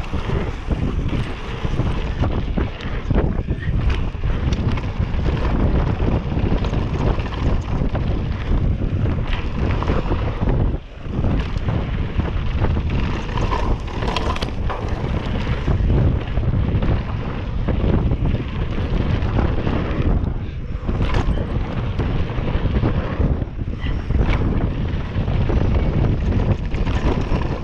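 Wind buffeting the microphone of a camera on a mountain bike descending a dirt trail at speed, mixed with the rumble of knobby tyres on hard-packed dirt and the rattle of the bike. The noise dips briefly about eleven seconds in.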